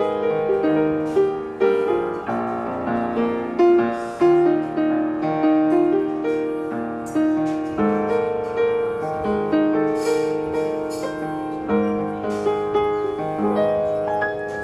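Piano music: notes and chords struck one after another and left to ring.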